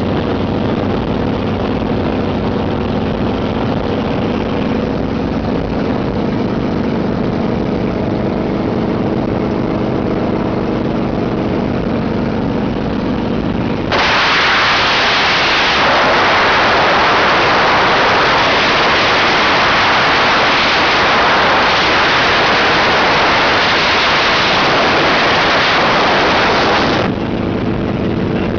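Steady drone of a helicopter's engine and rotor inside the cabin. About halfway through, a loud rush of wind replaces it as the microphone meets the roughly 91 mph airstream outside the open door. The cabin drone returns shortly before the end.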